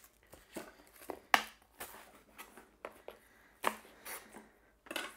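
Kitchen knife cutting an onion on a plastic chopping board: a scatter of irregular, sharp knocks of the blade on the board, two of them louder.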